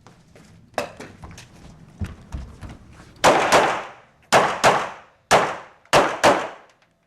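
Handgun shots on a practical-shooting stage. A few fainter sharp reports come first, then seven loud shots, mostly fired in quick pairs about a third of a second apart, each with an echoing tail.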